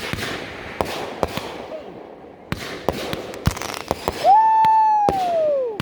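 Consumer fireworks going off in a string of sharp pops and bangs. About four seconds in, a loud whistling firework starts: its whistle holds steady, then falls in pitch for about a second and a half.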